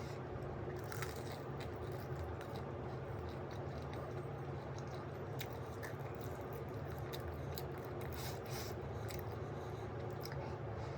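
Close-up eating sounds as a person chews momos: scattered small clicks and wet mouth noises over a steady low background hum.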